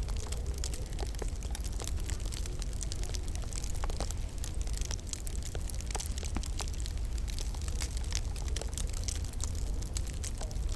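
Wood fire in a log burner crackling: many small, irregular pops and snaps over a steady low rumble.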